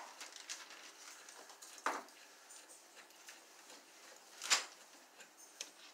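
Small clicks and taps of a wall outlet being handled during rewiring, with two louder short knocks, one about two seconds in and one about four and a half seconds in.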